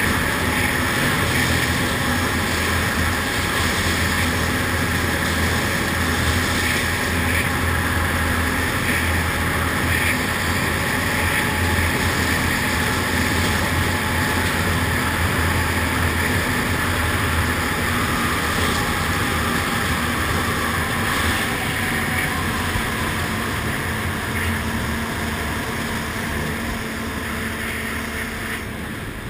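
ATV (quad) engine running steadily at a constant riding speed inside a tunnel, getting somewhat quieter over the last several seconds.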